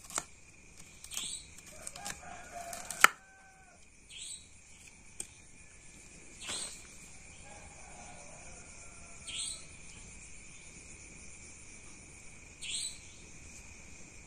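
Rural background sound: a steady high insect drone, a bird giving a short falling call about every three seconds, and a faint clucking or crowing chicken. A few sharp knocks come in the first three seconds.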